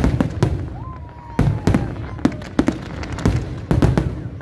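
Aerial fireworks bursting overhead: sharp bangs in quick, irregular succession, about ten in four seconds, with low rumble between them. A brief whistle sounds about a second in.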